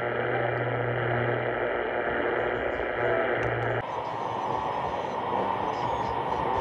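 Portable AM radios' speakers giving out a weak, distant station buried in static and hiss. First a Qodosen DX-286 on its whip antenna, with a steady low hum under the noise; after a cut about four seconds in, a Panasonic RF-2200 on the same frequency, with hissier static.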